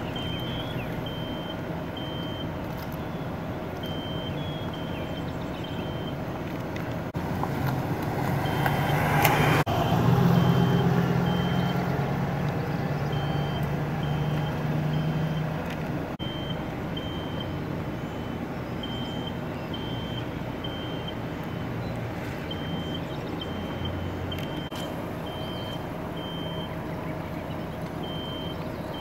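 High electronic beeping, short beeps about two a second in runs of three or four with pauses, over a steady low hum. About seven seconds in a motor vehicle's engine grows loud, peaks around ten seconds, and fades away by about sixteen seconds.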